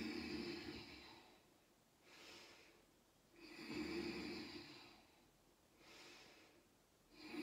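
A person taking slow, deep, audible breaths while holding a yoga pose. Stronger and softer breaths alternate, one every couple of seconds.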